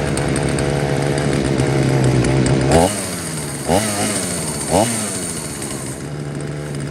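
Husqvarna 235 two-stroke chainsaw idling steadily, with three quick throttle blips in the middle, each revving up sharply and falling back to idle. It is running well now that new fuel lines and a new primer bulb have cured its failure to start.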